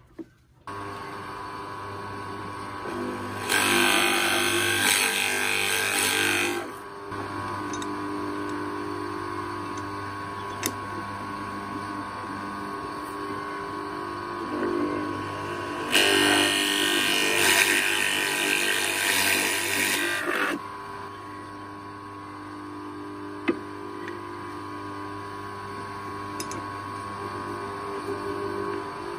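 Old drill press running with a steady hum while its bit bores into a hardwood beam. Twice the cut gets much louder and rougher for a few seconds as the bit chews through the wood.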